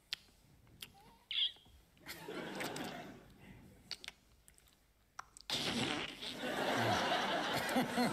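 Studio audience laughing, broken by a few short clicks and a brief high squeak. About five and a half seconds in, the laughter and clapping swell and build.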